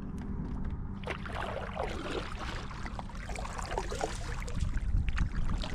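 Water moving and splashing around a fishing kayak on a river current, over a steady low rumble of wind on the microphone and a faint steady hum. The splashing picks up about a second in and eases near the end.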